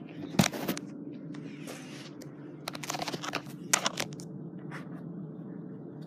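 Rustling and scraping handling noise in several short bursts, the sharpest about half a second in, over a steady low hum.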